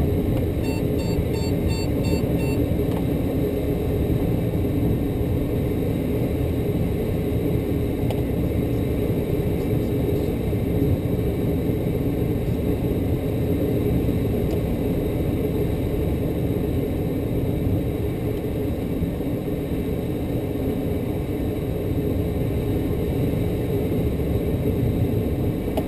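Steady rush and rumble of airflow in the cockpit of a light aircraft gliding at about 50 knots with its engine shut down. About a second in, a quick run of about six short electronic beeps sounds over the wind noise.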